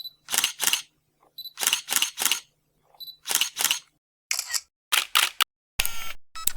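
Camera shutter sound effect: a short high beep followed by a two-part shutter click, repeated three times about every second and a half, then further short clicks near the end.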